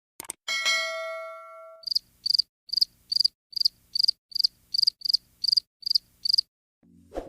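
A click and a bell-like ding that rings out for about a second and a half, followed by crickets chirping: about a dozen short, high chirps at an even pace, roughly two and a half a second.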